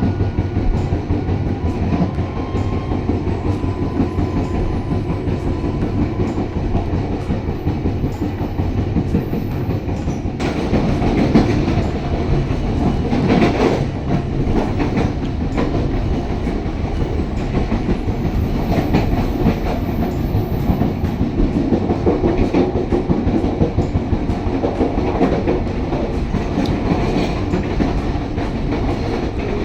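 Pasundan passenger train running along the track: a steady rumble with the wheels clicking over the rail joints, getting louder for a few seconds about halfway through.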